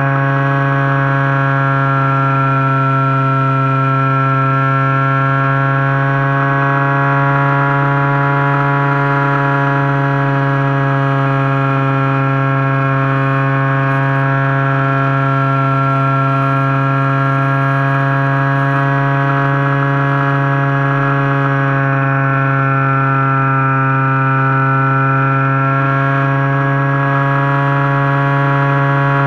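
Turnigy G10 brushless motor spinning a 10x6 propeller at steady throttle, heard loud and close from the camera on board the plane. It makes a constant whine with many overtones, its pitch barely changing.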